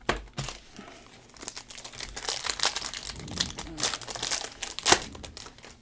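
Plastic wrapper of a trading card pack being torn open and crinkled by gloved hands: a run of crackles, with a sharp snap just after the start and a louder one near the end.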